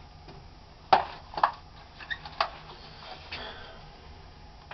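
A few sharp clacks and knocks of handling, with faint rustling, as a pair of over-ear headphones is picked up and put on.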